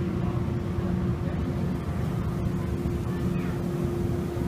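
Ferry under way, heard from its deck: a steady low engine rumble with a steady hum, and faint voices.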